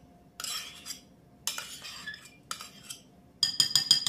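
A metal spoon scraping as it scoops creme de leite and drops it into a glass bowl, in several short scrapes. Near the end it is knocked quickly against the rim of the cut-glass bowl, about eight ringing clinks, to shake the cream off.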